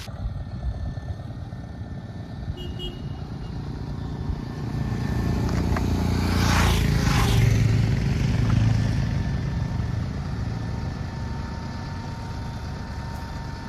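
A motor vehicle's engine running with a steady low rumble that grows louder toward the middle and eases off again.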